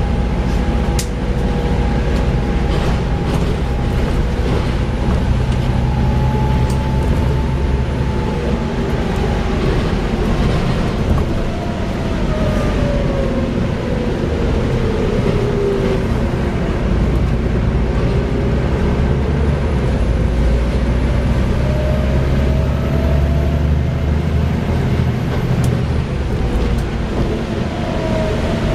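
Volvo B7TL double-decker bus under way, its diesel engine droning steadily with a thin transmission whine from the ZF gearbox that slowly falls in pitch and later rises again as the bus slows and pulls away. A few sharp clicks and rattles come through over the drone.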